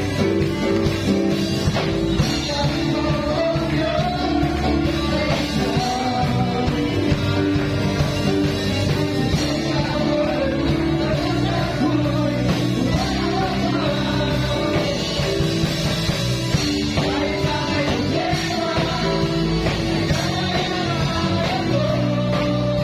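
Live church worship band playing a Tagalog praise song: a man singing lead over electric guitar, drum kit and keyboard.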